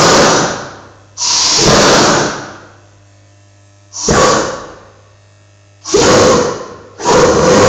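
Gas flame in a homemade pipe burner lighting in a series of loud rushing bursts, each dying away within about a second. Near the end it settles into a steady burn.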